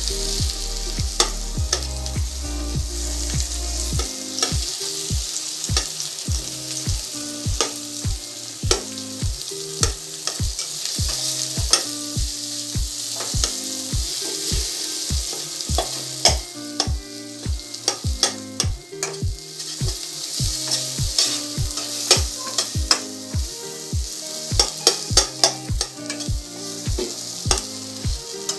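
Ground jackfruit-seed paste frying in ghee in a nonstick pan, sizzling steadily as a spatula stirs it, with frequent scrapes and taps of the spatula against the pan.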